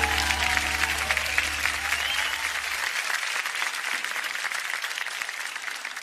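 Audience applause at the end of a song, with the last held chord of the backing music dying out about halfway through. The applause fades away toward the end.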